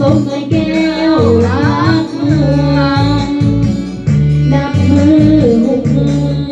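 A woman singing karaoke into a microphone over a backing track with a steady bass line, the voice wavering and bending in pitch.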